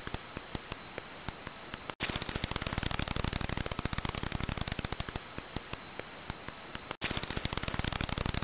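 Brown long-eared bat calls heard as rapid clicking. Sparse clicks, a few a second, over the first two seconds and again from about five to seven seconds in; between them come dense, fast runs of clicks. The sound cuts out for an instant about two seconds and seven seconds in.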